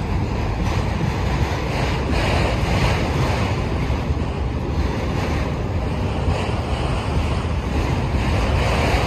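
Freight train of autorack cars rolling steadily past, a continuous noise of steel wheels on rail, with wind buffeting the microphone.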